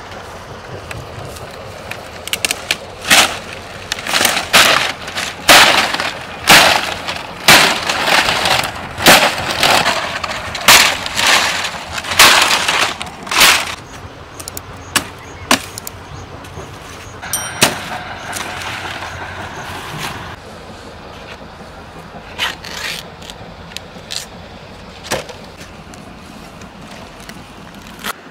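Repeated sharp cracks and snaps of palm leaf stalks being hacked with a sickle and broken off a young palm, about one a second for some ten seconds, then a few fainter snaps and rustles.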